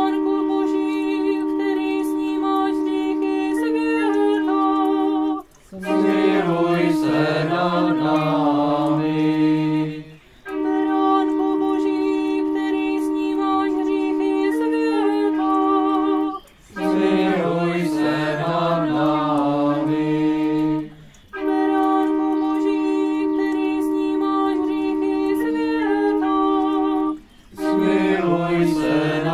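A small pipe organ plays held chords in phrases of about five seconds. These alternate three times with a group of people singing a hymn phrase of about four seconds.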